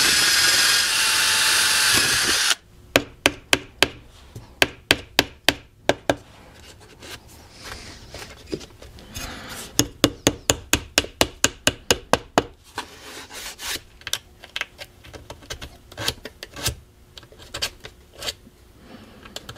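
Electric drill running for about two and a half seconds as it bores a small hole into the wooden camera body, then stopping. A long run of sharp, irregular clicks and taps follows, quickest and loudest over the next ten seconds and fainter near the end.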